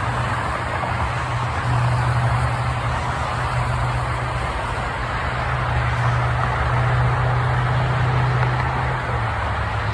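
Motor vehicle running steadily: a low even hum over a hiss of road or wind noise. The hum drops away about nine seconds in.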